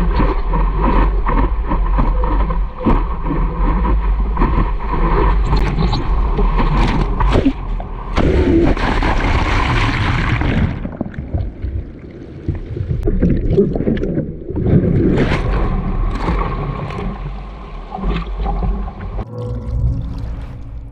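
Water sloshing and splashing around a board, with a heavy wind rumble on the microphone and a louder rush of water about eight to eleven seconds in.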